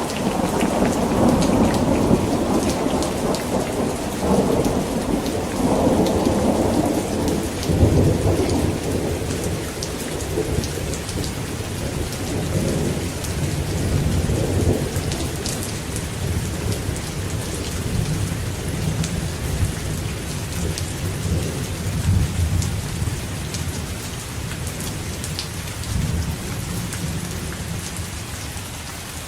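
Steady rain falling while a long roll of strong thunder rumbles. The thunder is loudest in the first several seconds, then dies away slowly toward the end, leaving the rain.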